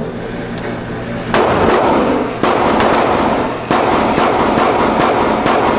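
Rapid gunshots with heavy echo in an indoor shooting range, a dense run of shots getting louder about a second in.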